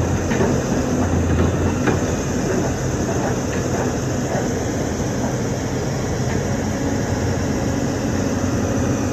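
Heavy excavator diesel engine running steadily at idle, a continuous low drone, with a few light clicks in the first couple of seconds.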